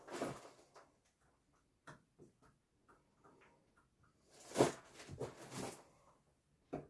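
Quiet handling noises of wood and tools: scattered small clicks and taps, with a short scraping rub of wood about four and a half seconds in.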